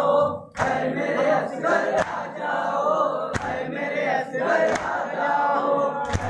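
A crowd of men chanting together in a Muharram mourning chant, with a sharp beat about every second and a half.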